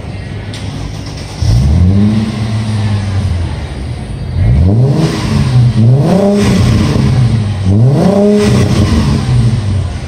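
Mercedes-Benz C32 AMG's supercharged 3.2-litre V6 with its muffler deleted, idling and then revved four times: one held rev of about two seconds, then three quicker blips, the exhaust note rising and falling with each. It drops back to idle near the end.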